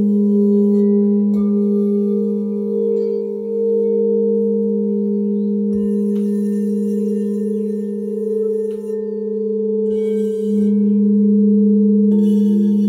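Several Crystal Tones alchemy quartz crystal singing bowls ringing together in a steady, sustained chord of a low tone and a cluster of middle tones, with a slow wobble between them. A few light knocks come through, and another bowl tone joins near the end.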